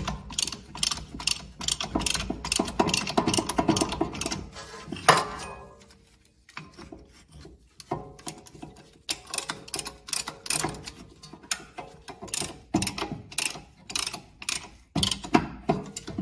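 A brake caliper piston compressor tool ratcheting in quick clicks, two to three a second, as it pushes the rear caliper piston back into its bore to make room for new pads. The clicking stops for about two seconds partway through, then resumes.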